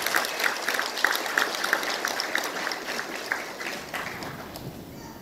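Audience applauding, a dense patter of many hands clapping that is loudest at first and dies away about four and a half seconds in.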